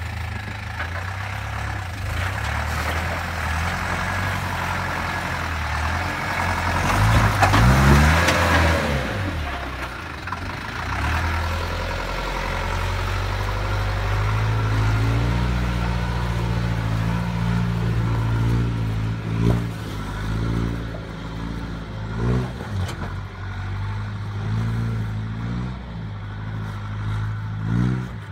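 Land Rover 110 Perentie RFSV's Isuzu four-cylinder diesel engine working at low revs under load as it crawls up a rutted track. It revs up hard about seven to eight seconds in, then gives several shorter bursts of revs later on.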